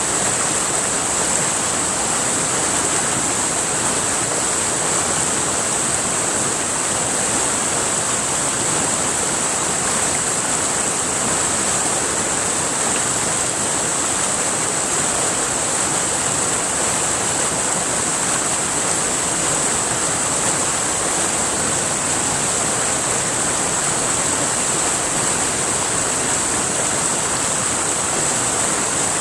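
River water rushing and flowing steadily, with an even high hiss over it.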